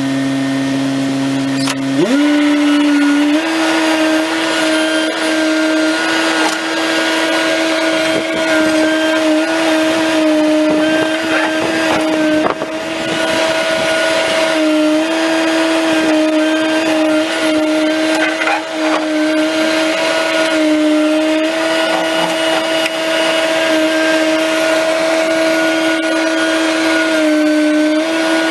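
Bobcat T630 track loader running its SG60 hydraulic stump grinder attachment: a loud, steady motor whine that steps up in pitch about two seconds in as the speed comes up, then holds with a few brief dips in pitch.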